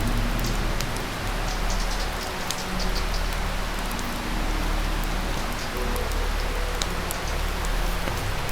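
Mountain river rushing: a steady, even wash of water noise with faint sharp ticks over it.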